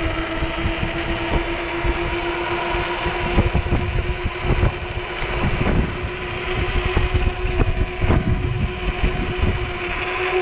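Strong wind buffeting the microphone in gusts, over the steady whine of an electric bike's motor running on throttle.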